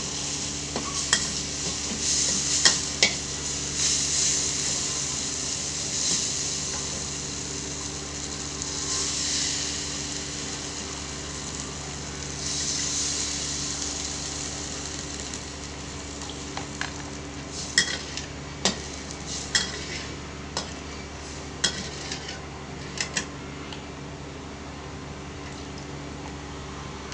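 Chili spice paste sizzling in a wok while a metal spatula scrapes and clinks against the pan. About halfway through the sizzle dies away as shrimp broth is ladled in, followed by scattered sharp clinks of a metal ladle against the wok and bowl.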